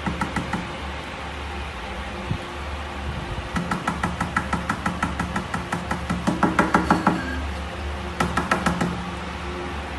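Fingers tapping quickly on a glass tabletop, about six taps a second, in runs: a brief one at the start, a long one from about three and a half to seven seconds in, and a short one near nine seconds.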